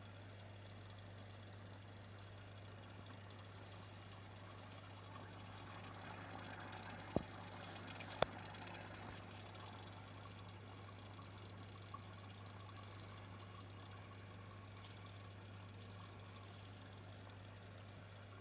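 Faint steady low electrical hum with light hiss, broken by two sharp clicks about a second apart near the middle.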